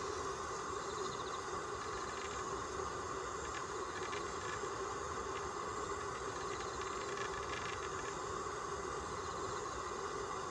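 Steady outdoor background hum with faint bursts of insect chirring high up that come and go a few times; no call from the owl.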